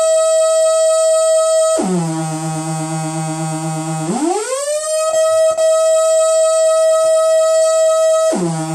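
Transcendent 2000 analogue synthesizer's raw oscillator output, taken unfiltered because its filter and envelope are not yet working: a continuous buzzy tone held on one note. Nearly two seconds in it drops about two octaves, a little after four seconds it glides smoothly back up to the first note, and near the end it drops again, with a few faint clicks in the middle.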